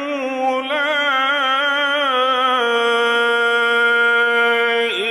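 A male Qur'an reciter chants through a microphone in the melodic mujawwad style, drawing out the word 'yaqūlā'. He ornaments it with wavering turns of pitch, then holds one long steady note that breaks off near the end.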